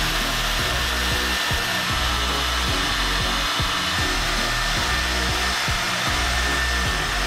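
Router spindle motor on a gantry-type woodworking machine running and cutting into a wooden cylinder held between lathe centres, with the dust-collector hose drawing air at the bit. It makes a steady, loud machine noise with a thin high whine.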